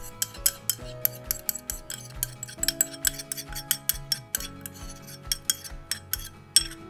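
Metal spoon scraping and tapping inside a ceramic bowl in quick, irregular clicks as dissolved miso paste is scraped out into a saucepan. Soft background music with held notes runs underneath.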